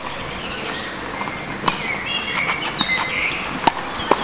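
Tennis rally: sharp pocks of the ball off racket strings and court, about four in all, the loudest about three and a half seconds in. Birds chirp in the background about halfway through.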